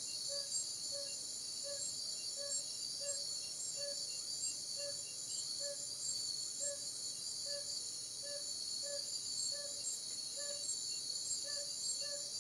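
Steady, shrill chorus of night insects such as crickets, with a short low note repeating about every half second over it.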